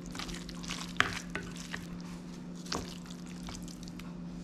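Wooden spoon stirring and scooping a moist chayote-and-ham stuffing in a glass bowl: soft, wet scraping with light clicks of the spoon against the glass, the sharpest about one second in and near three seconds, over a faint steady hum.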